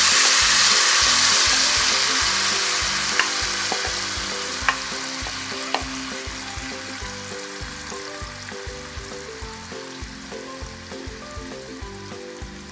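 Blended gravy paste sizzling in hot oil with cumin seeds in a frying pan, loud just after it goes in and fading steadily, with a few light clicks.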